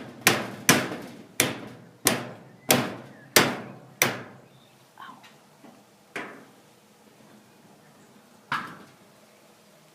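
Rusty brass padlock being struck repeatedly to jar loose a seized shackle: sharp ringing knocks about every two-thirds of a second for the first four seconds, then three fainter, scattered knocks.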